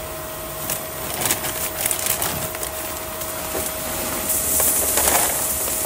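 Water-softener salt pellets pouring into a plastic brine tank: a dense rattle of small clicks and hiss that grows louder in the second half, over a faint steady hum.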